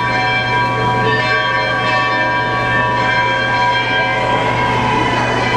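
Overlapping bell-like ringing tones, several at once at different pitches, each sustained and slowly fading, over a steady low hum.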